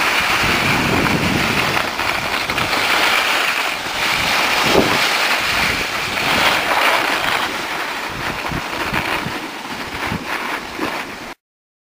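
Wind rushing over the microphone with the scrape and hiss of snow under a rider sliding down a groomed piste, with a few low bumps. It cuts off suddenly near the end.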